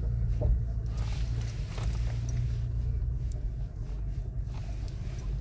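Toyota Tacoma TRD Off-Road's engine making a steady low drone as the truck crawls up a steep, rocky incline. A few light knocks come from the truck working over the rocks.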